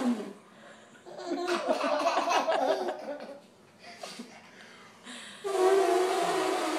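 A young child laughing in short bursts, then, about five and a half seconds in, a loud long held vocal sound on one steady note, a playful imitation sound made to amuse the children.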